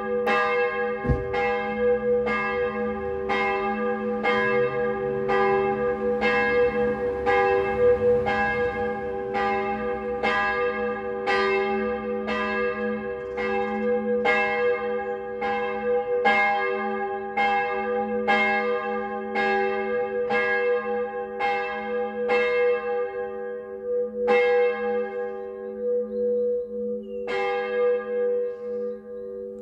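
The small 1752 Schneidewind church bell, tuned to a slightly raised g', is being rung: its clapper strikes a little more than once a second. Each stroke rings on over the bell's steady hum. Near the end the strokes become uneven, with one short gap.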